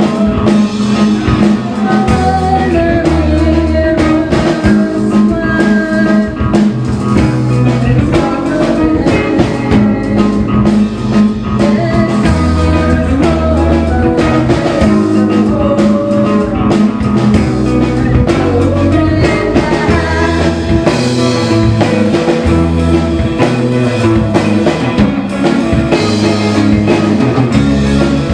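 Live rock band playing loud: distorted electric guitar, electric bass and a Gretsch drum kit.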